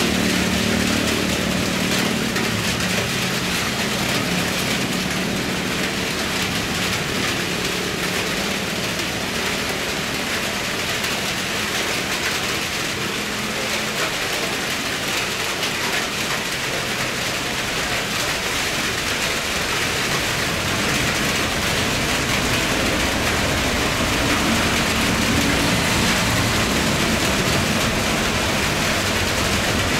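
Boeing 787 jetliner landing on a wet runway in rain: steady jet-engine noise blended with rain hiss, with the low rumble growing stronger in the second half as the aircraft rolls out.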